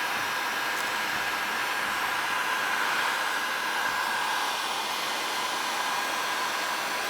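Electric heat gun running steadily, its fan blowing with a faint whine, as it heats a plastic bottle sleeve to shrink it onto a pool hose.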